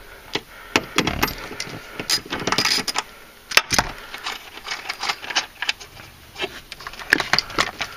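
Irregular metal clicks, clinks and knocks from a wrench and hinge hardware as a replacement car door hinge is set in place on its bolts, with a louder knock about three and a half seconds in.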